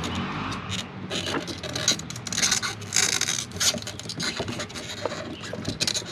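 Wires and hands rubbing and scraping against the air conditioner's ceiling housing as the wiring is tucked up out of the way: a run of irregular scrapes, rustles and small knocks.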